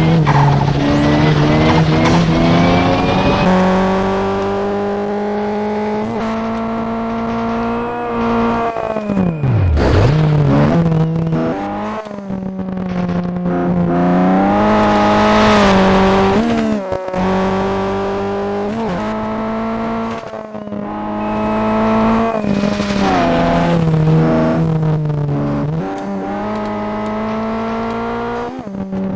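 Toyota Celica's turbocharged engine under hard driving, its revs climbing and falling again and again through the gears. On each lift of the throttle there is a brief break in the sound, where the turbo flutters.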